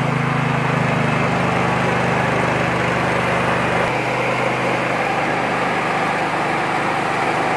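Type 820 Pro mini rice huller-polisher running steadily while milling paddy, a loud mechanical hum with a rushing grain noise over it. The low hum shifts suddenly about four seconds in.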